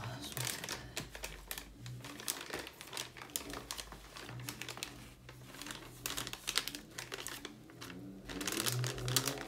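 Crinkling of a plastic MRE flameless ration heater bag being folded over and handled, irregular and continuous; water has just been added, starting the heater.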